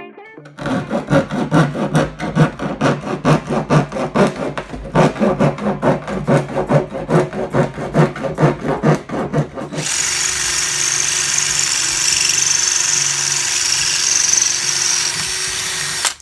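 Quick, even hand-tool strokes scraping on a blue plastic drum, about four a second, for roughly nine seconds. Then a cordless drill runs steadily at speed with a constant whine.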